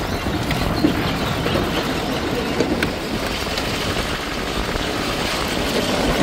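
Safari vehicle driving through the forest: steady engine and road noise with a few small knocks.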